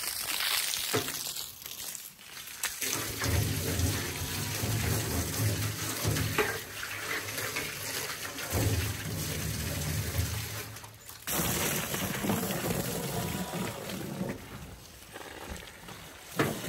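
Water pouring and splashing into a livestock water container, with a deeper rumble through the middle stretch and a brief break about eleven seconds in.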